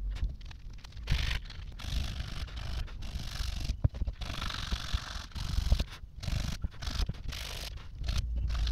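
Irregular scraping and rubbing on a metal water-pump motor housing as it is worked by hand, coming in short stop-start strokes with a few sharp knocks, one clear one about four seconds in.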